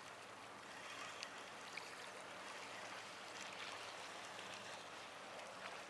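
Faint sea water lapping and washing among breakwater tetrapods, a soft steady hiss, with a couple of small clicks about one and two seconds in.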